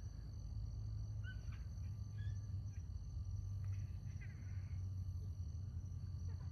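Outdoor ambience: a steady low hum with a few faint, short chirping calls scattered through it.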